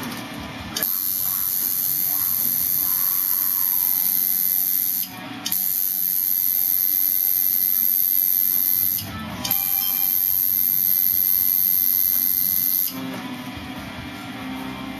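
Electric tattoo machine buzzing as it inks skin, in three runs of about four seconds each. It stops briefly about five and nine seconds in and cuts off about thirteen seconds in.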